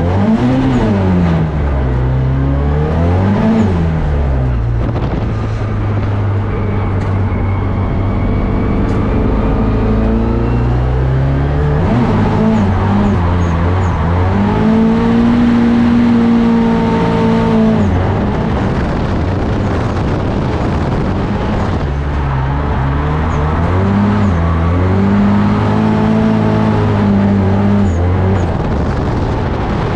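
Drift car engine being revved hard, its pitch swinging up and down repeatedly as the throttle is worked through a drift, under a steady rush of noise from the spinning tyres.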